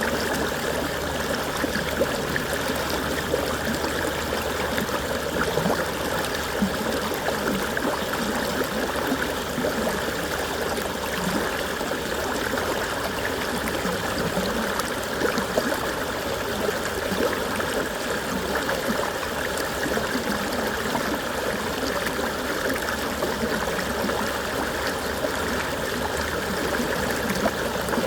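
Running water of a stream, a steady babbling and trickling with no break.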